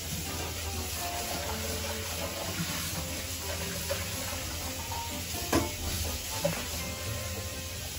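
Countertop rotisserie oven running with a steady low hum while fat sizzles on the drip tray, with a sharp pop of spattering fat about five and a half seconds in and a smaller one a second later.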